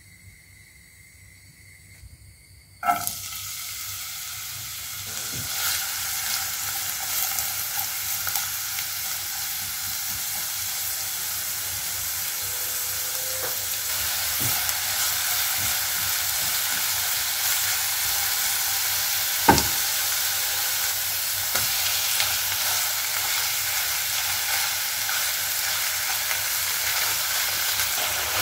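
Chopped onion frying in vegetable oil in a nonstick pan: a sudden loud sizzle about three seconds in as it goes into the hot oil, then a steady sizzle while it is stirred with a silicone spatula. One sharp knock stands out about twenty seconds in.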